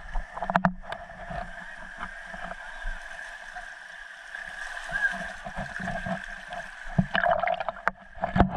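Sea surf washing and gurgling over mussel-covered shoreline rocks, with a few sharp knocks about half a second in and a louder surge of water around seven seconds in.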